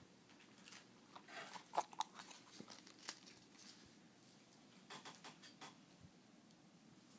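Rabbit chewing lettuce: faint, quick crunches in two clusters, the loudest about two seconds in.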